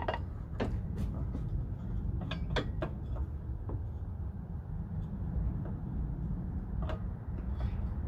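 Scattered light metallic clicks and taps as a car's replacement hood hinge and its bolts are handled and fitted into place, over a steady low rumble.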